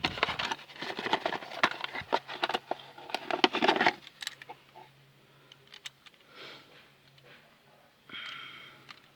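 Rustling and clicking of a new front ball joint kit being handled, its parts and packaging clattering, for about four seconds, then it goes quiet over a faint low steady hum.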